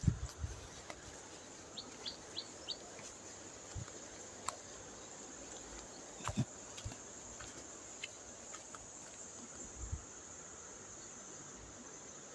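A small bird chirping, four quick high notes in a row about two seconds in, over a steady outdoor hiss, with a few scattered low thumps and clicks of handling or movement.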